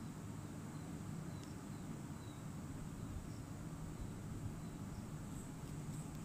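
Onion and whole spices frying in hot oil in an aluminium pot on a gas stove: a faint, steady sizzle over a steady low hum, with a few faint ticks.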